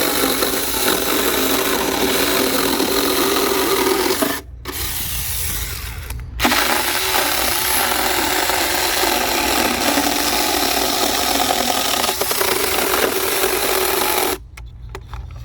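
Small 21 V cordless electric mini chainsaw running and cutting, its chain rasping through material. It has two brief breaks about a third of the way in and stops abruptly near the end, when the chain catches on a bit of strap.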